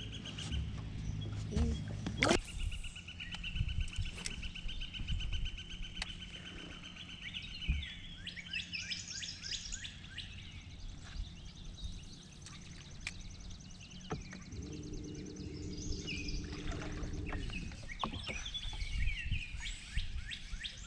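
Wild birds singing around the water: a long, evenly pulsed trill lasting several seconds, then scattered chirps and warbling phrases.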